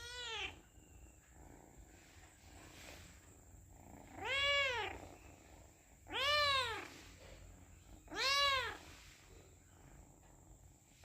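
A cat meowing: a short meow at the start, then three clear, drawn-out meows about two seconds apart, each rising and then falling in pitch.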